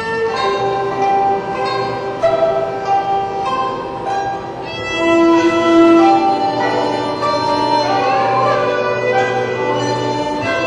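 Chinese traditional orchestra playing a melody carried by bowed strings, with sustained notes moving in steps over a low steady drone.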